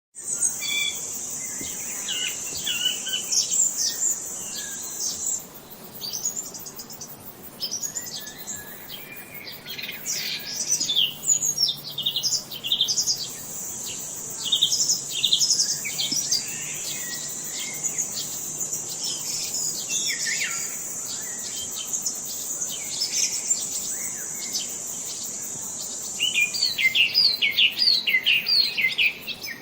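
Several songbirds chirping and singing over a steady, high-pitched insect drone. The drone drops out for several seconds early on and then returns, and a fast run of chirps comes near the end.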